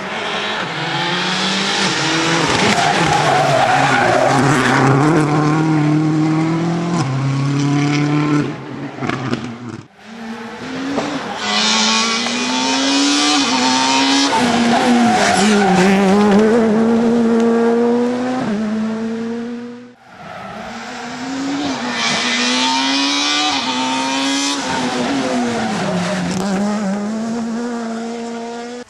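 Rally cars driven flat out along a loose-surfaced stage, heard as three separate passes. Each engine climbs and drops in pitch through quick gear changes. Gravel and grit spray from the tyres make a hiss.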